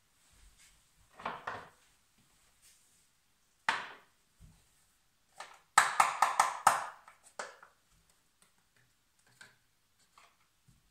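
Handling of a paper dosing cup and a pocket scale: a short clatter about a second in, a single sharp knock near 4 s, then a quick run of about six knocks around 6 s. Faint ticks follow as the scale is touched to bring it back to zero.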